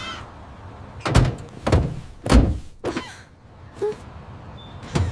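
A series of dull thuds, the three loudest coming close together about a second in, then a few weaker knocks.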